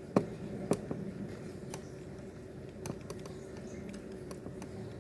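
Light plastic clicks and taps of a pen poking at a laptop DVD drive's emergency-eject pinhole while the stuck tray refuses to open. Two sharper clicks come in the first second, then fainter scattered ticks.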